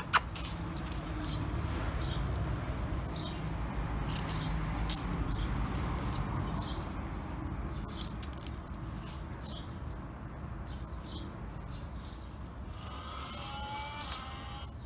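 Small birds chirping, short high calls coming and going over a steady low background rumble.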